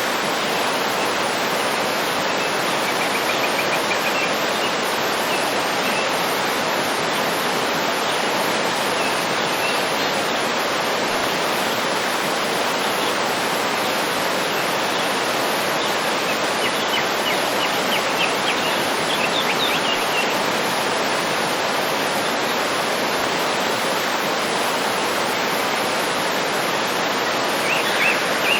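Waterfall's steady rush of falling water, with faint bird chirps a few seconds in, again in a short run past the middle, and near the end.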